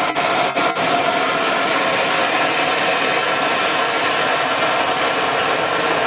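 A jet of steam blasting out from the base of a steam boiler in a loud, steady hiss, faltering a few times in the first second.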